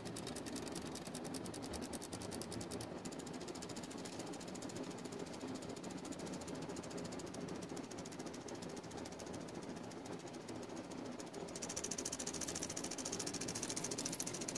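Motorised hand movements of an analogue perpetual calendar wall clock driving the hands and calendar subdials forward as the clock sets itself to the synced date and time: a fast, even mechanical ticking. A louder high hiss comes in about twelve seconds in.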